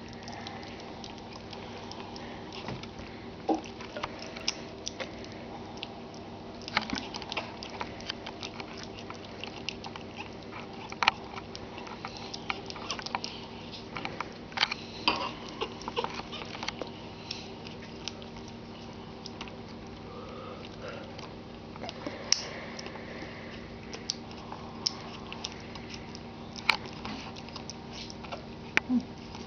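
Pug puppy eating soft mush off a spoon: many small irregular wet clicks of lapping and smacking, over a steady low hum.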